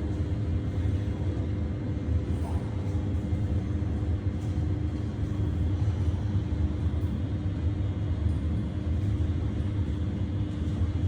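Steady low rumble with a constant hum running under it, unchanging throughout.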